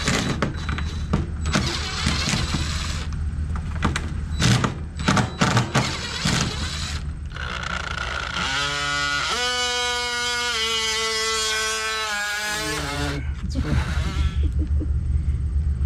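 Cordless DeWalt 20V drill spinning up and running for about four seconds while drilling into the RV door frame; its pitch rises as it starts, then shifts in steps with the trigger. Before it come scattered clicks and knocks of tools and hardware being handled.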